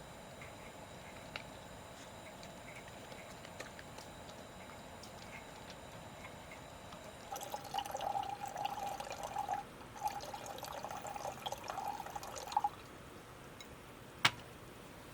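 Liquid trickling in two spells of a few seconds each, then a single sharp click near the end.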